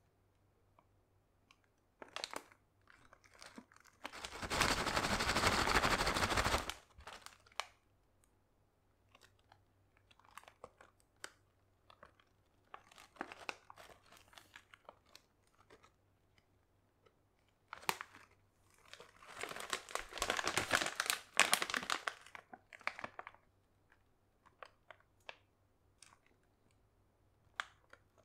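Crinkly plastic potato-chip bag being handled and turned over in the hand, crackling in two long spells, one about four seconds in and one around twenty seconds in, with scattered small crinkles and clicks between.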